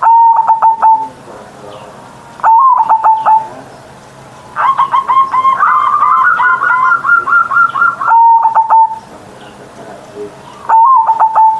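Zebra dove (perkutut) cooing its song: five phrases of quick stuttering notes that end in a held coo, with one longer run of rapid notes in the middle.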